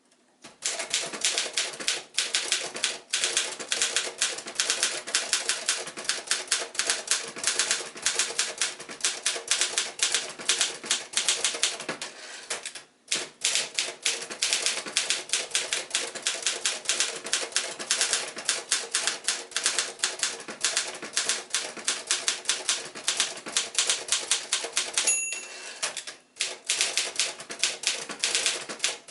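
1965 Remington Mark II (Torpedo 18) manual portable typewriter being typed on: rapid, irregular key strikes, with one short pause midway and a brief ringing tone followed by another pause near the end.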